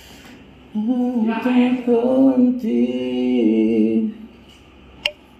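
A man singing a melody unaccompanied, in two long held phrases, then a single sharp click near the end.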